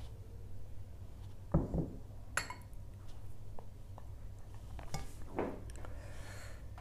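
China dishes knocking and clinking: a small ceramic bowl is put down with a dull knock about a second and a half in, followed by a sharp clink of china and a few lighter clicks later on.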